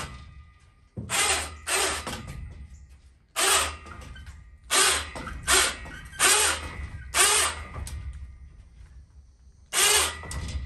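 Electric ATV winch motor (a Harbor Freight unit) on a homemade steel wall-jack crane, run by remote in about eight short bursts with pauses between, inching a roof truss upright on its cable.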